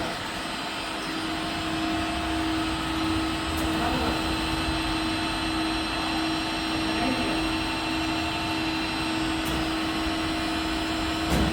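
Universal milling machine running with a steady hum and a constant tone, with a sharp click near the end.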